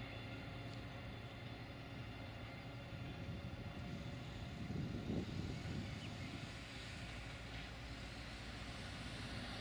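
Raildox Bombardier TRAXX diesel-electric locomotive 76 110 running slowly with a train of loaded potash hopper wagons, its diesel engine giving a steady low hum. A brief low rumble swells up about five seconds in.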